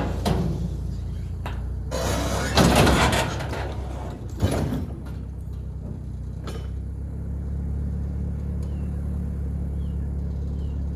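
A vehicle engine running steadily at a low idle, with two louder bursts of clatter about two and four and a half seconds in.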